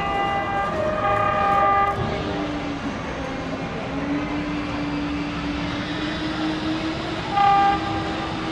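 Approaching HXD1C electric locomotive train: its horn sounds in the first two seconds and gives a short blast near the end, over the rumble of the train running on the rails. From about two seconds in, a steady whine slowly rises in pitch.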